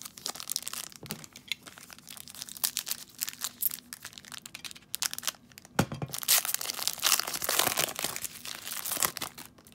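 Foil trading-card pack wrapper crinkling and being torn open. There is a sharp snap about six seconds in, with the loudest crackling after it.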